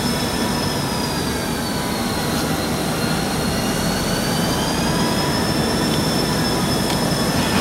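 Covered hopper cars of a freight train rolling slowly past, a steady rumble with a thin, high wheel squeal that slowly wavers down and back up in pitch.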